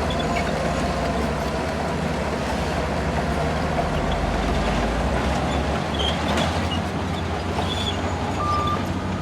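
Shantui bulldozer's diesel engine running steadily, with a reversing alarm starting to beep near the end.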